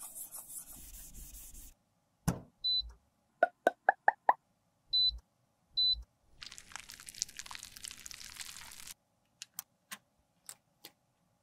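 Close-up makeup restoration sounds: a tissue rubbing across a compact mirror, then clicks, five quick plinks rising in pitch, a few short high beeps with soft thuds, a stretch of scraping as powder is worked into a pan, and four sharp clicks near the end.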